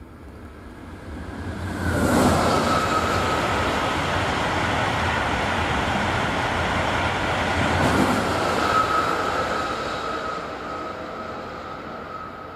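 A Trenitalia high-speed electric train passing: the noise swells up, holds loud for several seconds with a sharp burst at the start and another about six seconds later, then fades away. A steady high whine runs through the loud part.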